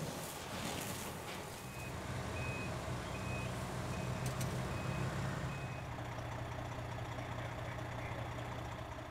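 A truck's reversing alarm beeps about six times at an even pace, over the steady low drone of a heavy engine running.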